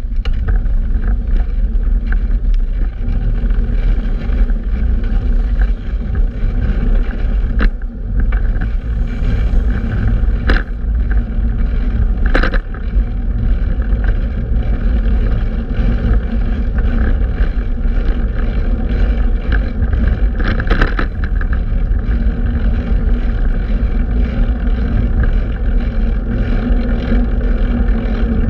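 Steady wind rumble buffeting the microphone, mixed with road noise from a fixed-gear bicycle being ridden. A few short, sharp knocks or clatters come through at scattered moments.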